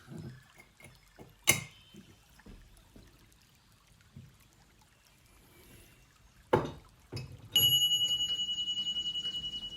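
A few scattered knocks and clicks, then a metal object struck once, ringing with a high clear tone that wavers quickly and slowly fades.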